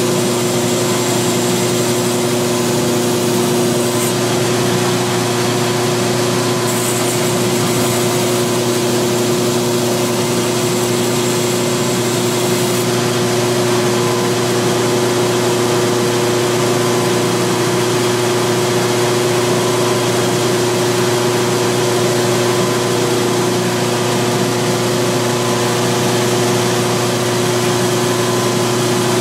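Belt grinder running with a new 60-grit belt over an 8-inch contact wheel, its motor humming steadily, while the steel bevel of a forged adze is hollow-ground against the wheel. The hiss of steel on the belt comes in spells during the first half and stops about 13 seconds in, after which the belt runs free.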